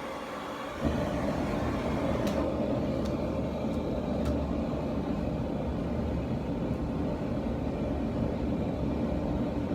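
Homemade propane forge burner running: a steady hiss, then about a second in a sudden thump and a much louder, deeper steady rumble of the burner flame, with a few faint ticks.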